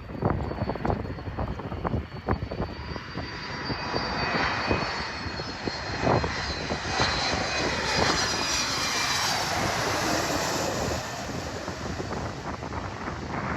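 Jet airliner passing, its engine noise swelling through the middle with a high whine that bends in pitch as it goes by. Gusts of wind buffet the microphone throughout.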